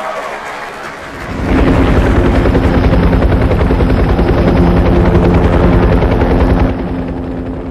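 Helicopter sound effect: rotor chop with a steady engine drone. It comes in loud about a second and a half in and drops back near the end.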